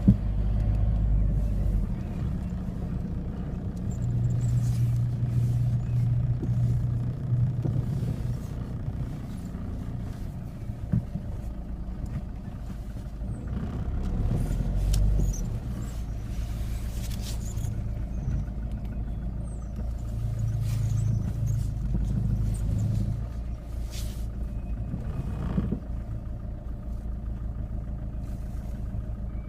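Peugeot 206 HDi 90 diesel engine running with a steady low hum, swelling louder twice for a few seconds. The owner suspects a worn engine mount, which he blames for vibration and noise when shifting gears and engaging reverse.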